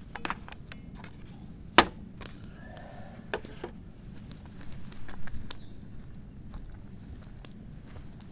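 Knocks and light clatter of coffee-making gear being set down on a camp table. A sharp, loud knock comes about two seconds in, then a few lighter knocks and a brief rustle of the paper coffee bag.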